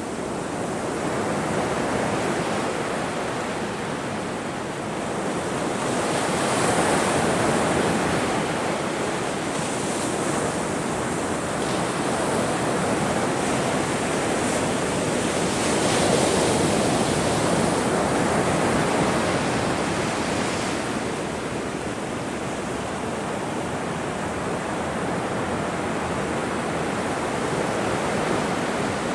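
Ocean surf: waves breaking and washing in a continuous rush, swelling louder and easing off every several seconds.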